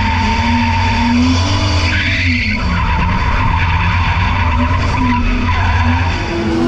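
BMW E46 drift car's engine revving hard, its pitch rising and falling as the throttle is worked, with the rear tyres squealing as the car slides sideways through a drift. A short hiss rises over it about two seconds in.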